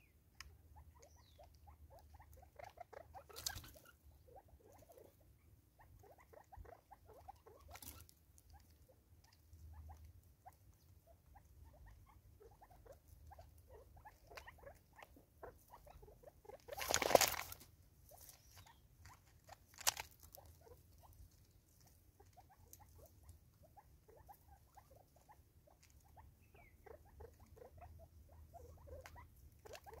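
Spurfowl pecking seed off a wooden stump and a plastic bottle feeder: a steady run of small taps and pecks. A few sharper knocks come now and then, and a loud rustling scramble a little past halfway as a bird jumps close by.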